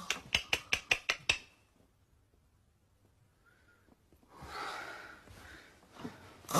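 About eight sharp clicks in quick succession in the first second and a half, then a pause. Then a breathy, rasping snore, a person's exaggerated comic imitation of loud snoring.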